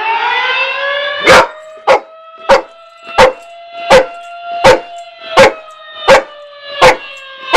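A tornado siren winds up in pitch and then holds a steady wail, while a Labrador retriever barks at it about every 0.7 seconds, some ten barks starting just over a second in: the dog's trained alert to the siren. The barks are louder than the siren.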